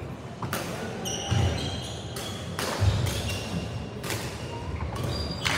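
Badminton rally: a string of sharp racket hits on the shuttlecock, about one a second, with short squeaks of shoes and thuds of footsteps on the wooden court floor.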